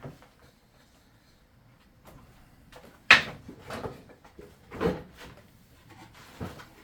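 About four wooden knocks and bumps from 18 mm plywood pieces being handled on the workbench, starting after a quiet few seconds; the first, about three seconds in, is a sharp knock and the loudest.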